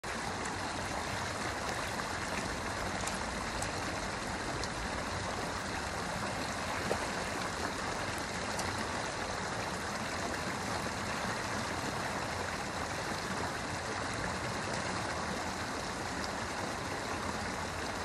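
Shallow river water running steadily over and around a low concrete slab, with white water where it spills off the edge.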